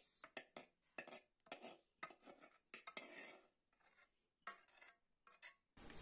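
Faint, scattered clinks and scrapes of a metal spoon against a metal frying pan as fried sausage is scraped out of it onto a bowl of couscous.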